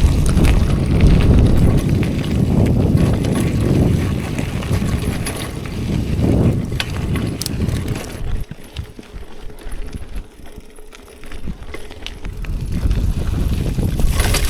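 City bike ridden over a rough trail: tyre rumble and rattling, with a heavy low rumble on the microphone. It eases off about eight seconds in, leaving scattered clicks and rattles, and builds again near the end.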